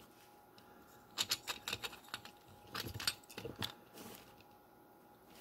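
Light clicks and small knocks from a diecast Tomica skip truck being handled, as its lifting arms are swung and the skip bin is raised off the bed, in two quick clusters starting about a second in and about three seconds in, with one last click near four seconds.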